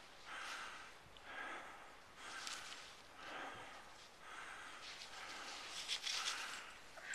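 Skis scraping and swishing on packed snow, one swish with each turn, about once a second.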